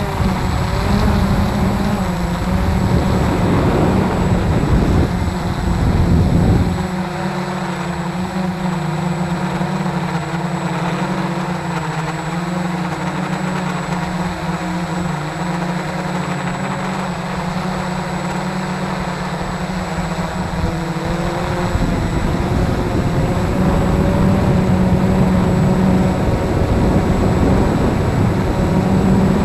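Walkera QR X350 Pro quadcopter's motors and propellers whining steadily, heard from the camera on board, the pitch wavering slightly as the motors adjust. A low rushing noise sits under the hum for the first seven seconds and again from about 22 seconds in.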